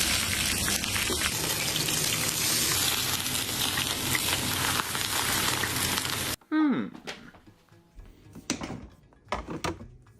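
Fish scales frying in hot oil: a dense, steady sizzle that cuts off suddenly about six seconds in. A short falling tone follows, then a few scattered knocks.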